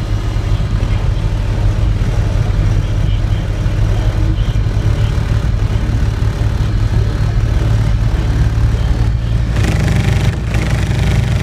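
Car audio system with sixteen 8-inch subwoofers playing loud, steady deep bass, heard from outside the truck, with little else of the music coming through.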